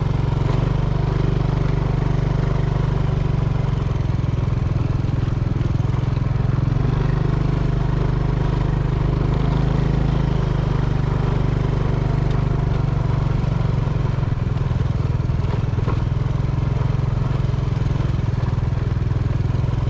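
A small engine running steadily at an even speed, a low continuous hum with no change in pace.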